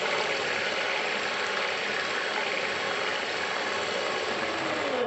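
Electric hand mixer running steadily, its twin beaters whisking raw eggs in a glass bowl.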